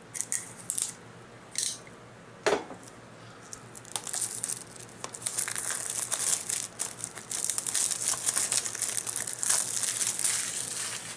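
Plastic shrink wrap on a Blu-ray case being slit with a utility knife: a few short scraping sounds, then from about four seconds in the wrap is torn off and crinkles continuously.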